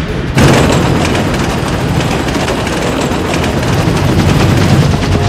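Sound effects of a freight train running at speed: a loud, dense rushing rumble with a fast, even clatter that cuts in sharply about half a second in.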